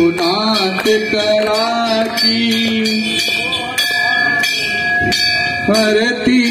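A group of worshippers singing a Hindu aarti together, with temple bells ringing.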